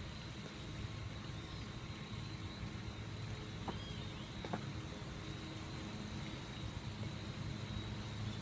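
Steady low mechanical hum with a faint high-pitched chirping above it, and two soft ticks a little under a second apart near the middle.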